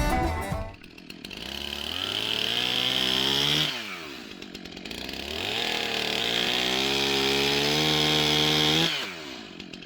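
Chainsaw engine revved up to full throttle twice, each run lasting about three seconds, rising in pitch and then dropping sharply back to idle.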